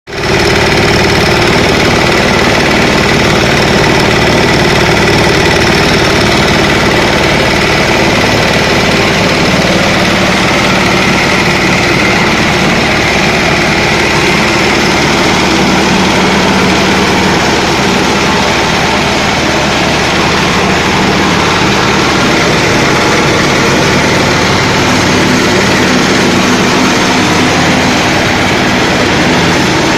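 Engine of a 5 hp concrete groove cutting machine running steadily, with a steady high whine over the engine sound.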